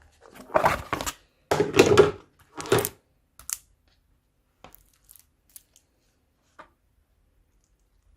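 Slime mixed with crunchy foam beads being squished and pressed by hand: three crackling, popping squishes in the first three seconds, trailing off into a few faint pops and clicks.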